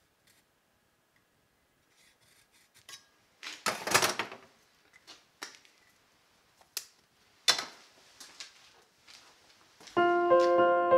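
Light clicks and a few short scrapes of metal being handled on a steel work table, the loudest scrape about four seconds in and another near eight seconds. Piano music comes in near the end.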